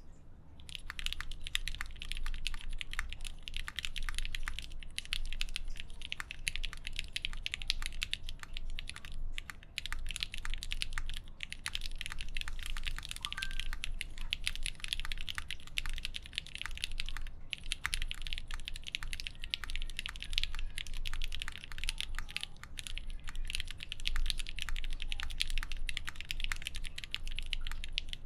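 Fast, continuous typing on an ai03 Vega mechanical keyboard with lubed Gateron X linear switches in an aluminium plate and GMK keycaps, a rapid patter of keystrokes with brief pauses. The keystrokes sound fairly quiet and muted.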